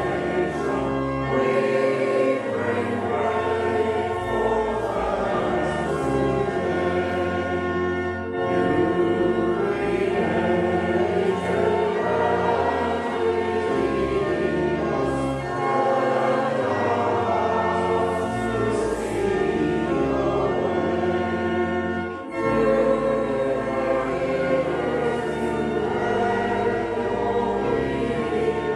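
Congregation singing a hymn together with instrumental accompaniment, held notes moving from line to line, with two brief dips between phrases.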